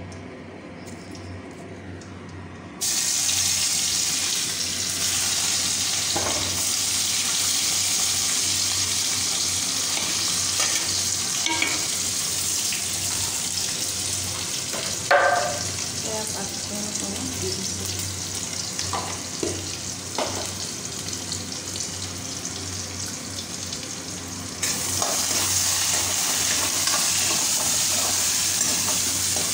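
Bay leaves, garlic and other spices dropped into hot oil in a wok, setting off a loud sizzle about three seconds in. Spatula scrapes and a sharp clack come midway, and the sizzle jumps louder again near the end as the pan is stirred.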